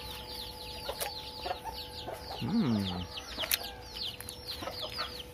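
Chickens in a yard: a rapid, continuous run of short high falling peeps, with clucking. About two and a half seconds in there is a lower call that rises and then falls in pitch.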